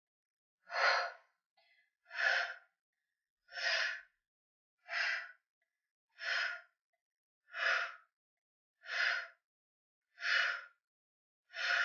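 A woman breathing hard in a steady rhythm, about one loud breath every second and a half, nine in all. It is exertion breathing while she holds a wide squat and pumps her heels up and down.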